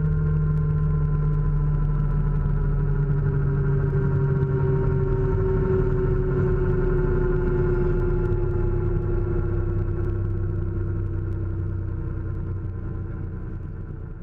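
Training helicopter's piston engine and rotor running on the ground, heard inside the bubble cockpit, its pitch slowly falling. The sound fades out near the end.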